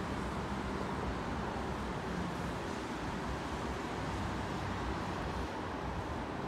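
Steady outdoor airport and traffic background noise: an even roar with a faint low hum in it now and then and no distinct event.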